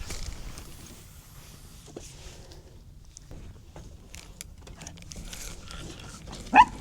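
Faint rustling and small clicks, then near the end a single short, high-pitched yap from a Maltipoo puppy.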